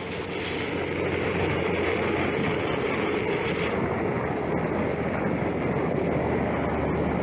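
Royal Enfield Himalayan 411 motorcycle underway at a steady speed: wind and road noise over the steady hum of its single-cylinder engine, fading in over the first second.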